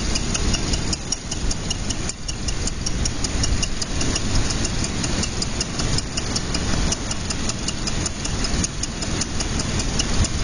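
Backpack paramotor engine idling steadily while the pilot holds the wing up before take-off, with an even, repeated ticking running through it.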